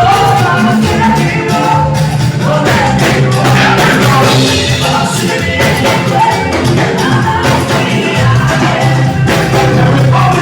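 A live band playing with singing, over a strong bass line and steady drum beats.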